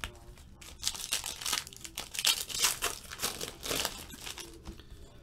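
Foil wrappers of football trading-card packs crinkling in the hands as the packs are torn open, an irregular run of crackles.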